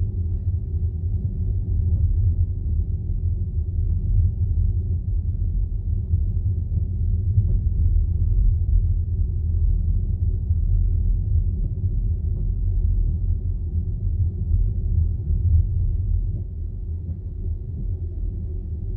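Low, steady rumble of tyre and road noise inside the cabin of an Audi Q4 e-tron electric SUV driving on a snowy road, easing a little near the end.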